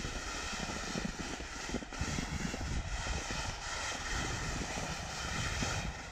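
Steady rushing noise of skiing downhill at speed: wind buffeting the camera's microphone, with the hiss of skis running over snow.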